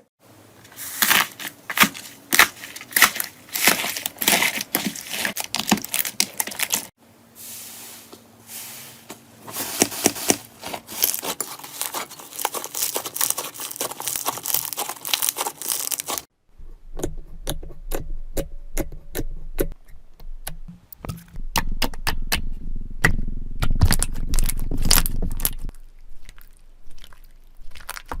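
Slime being squeezed, poked and stretched by hand, giving dense crackling and popping. The sound changes at two cuts, about 7 and 16 seconds in, and the last section adds deeper squelching.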